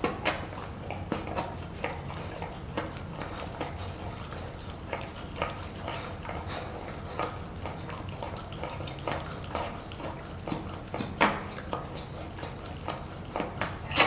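Puppy licking and chewing at a stuffed Kong rubber toy: irregular wet clicks and small knocks, with a louder knock about eleven seconds in.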